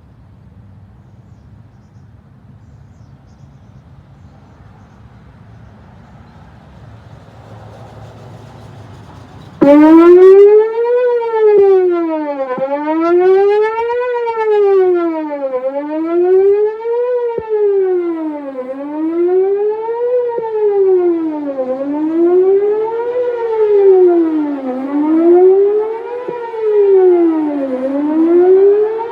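Whelen WPS 4008 electronic outdoor warning siren starting abruptly at full volume about ten seconds in, after faint background noise, sounding its Best Possible Protection tone: a steady pitch sweeping smoothly up and down, one rise and fall about every three seconds.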